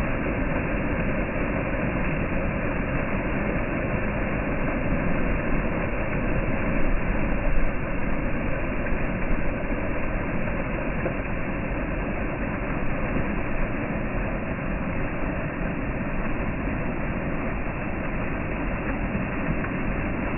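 Storm water pouring from a drain outlet into a creek in a steady, dense rush with a low rumble underneath.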